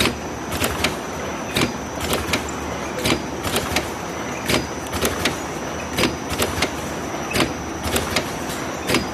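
Automatic hook-type box cartoning machine running: a steady mechanical hum with a thin high whine, broken by clusters of two or three sharp clacks from its mechanism that repeat about every second and a half as it cycles.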